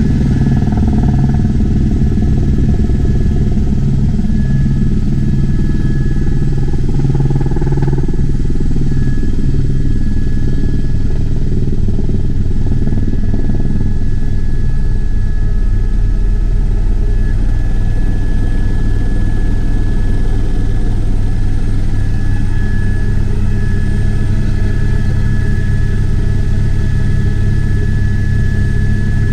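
Helicopter in flight, heard from on board: a steady drone of engine and rotor with a rapid low beat, and a thin, constant high whine over it.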